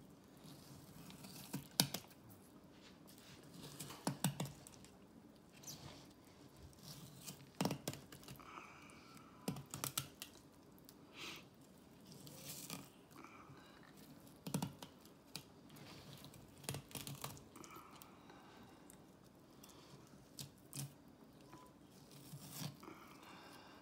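Fillet knife cutting a bass fillet away from the backbone on a plastic cutting board: faint, irregular crunches, clicks and scrapes as the blade works through skin and bone.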